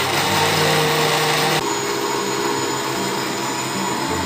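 Electric mixer grinder's small jar running at low speed, blending egg, garlic and lemon juice: a steady motor whine with the noise of the spinning blades. The pitch shifts slightly about a second and a half in.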